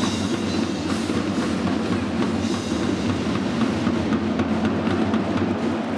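Supporters' drums beating steadily in a football stadium, over the noise of the crowd.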